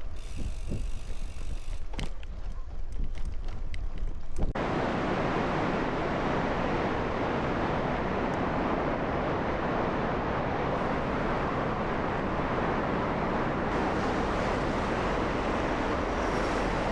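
Wind buffeting the microphone of a moving bicycle, a crosswind. A quieter rumble with a few clicks gives way suddenly, about four and a half seconds in, to a steady loud rush.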